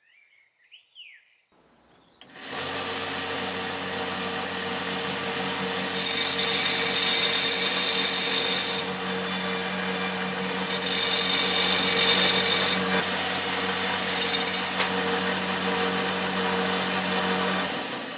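Belt sander running, its belt grinding the ends of M2 socket screws to shorten them. The motor comes in about two seconds in and runs steadily, with three stretches of louder, harsher grinding as a screw end is pressed to the belt, and it stops near the end.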